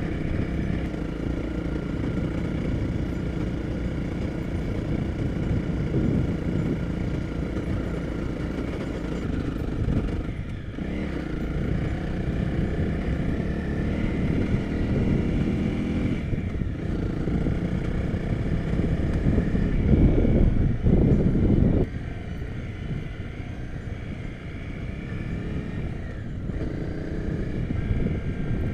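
Honda CRF250 Rally's single-cylinder engine running steadily while the bike is ridden along a bumpy dirt track. The engine note dips briefly twice. It is loudest for a couple of seconds about two-thirds of the way through, then drops off suddenly.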